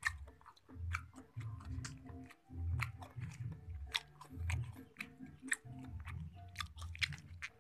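A person chewing a mouthful of rice close to the microphone: wet mouth sounds and small clicks in an uneven rhythm, about one to two chews a second.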